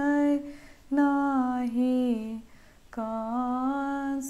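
A woman singing a Maithili sohar (a Krishna-birth song) unaccompanied. She sings slow, drawn-out notes in three short phrases with brief pauses between them.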